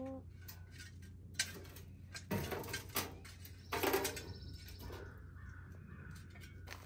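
A bird calls twice with harsh, cawing calls, about two and four seconds in, over a few light knocks from cinder blocks being handled in a wheelbarrow.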